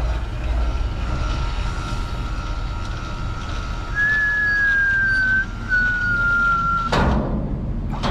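Electric tarp system on a roll-off truck running: a thin, high whine that grows louder about halfway through, breaks off briefly, and sags slightly in pitch. Two sharp knocks follow near the end.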